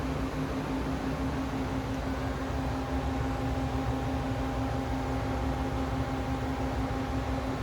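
Doosan 240M CNC turning center powered up and running: a steady machine hum with a strong low tone, joined by a fainter, higher whine from about three seconds in until near the end.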